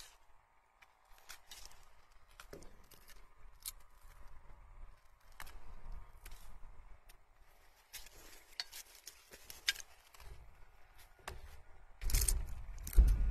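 Shine Muscat grapevine shoots being worked by a gloved hand: leaves rustling, with scattered small snaps and clicks as shoot tips are pinched off. A louder bump of handling noise comes about twelve seconds in.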